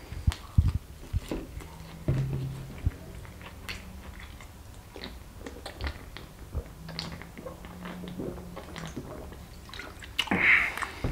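Close-miked mouth sounds of eating: wet chewing and lip smacks with a run of sharp clicks in the first second, then swallowing as soda is drunk from a plastic bottle, with a low throaty hum twice and a breathy exhale near the end.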